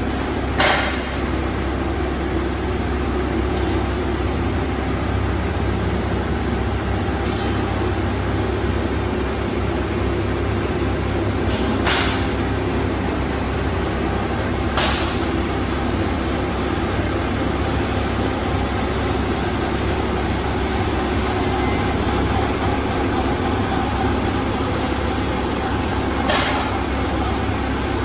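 All-servo flexographic label printing press running: a steady mechanical hum with a few short, sharp clicks.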